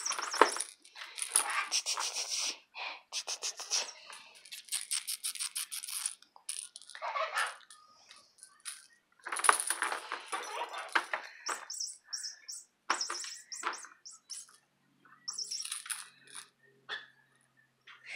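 Clicking and rustling of a small toy being batted and chased about by a kitten, in irregular clusters of quick clicks.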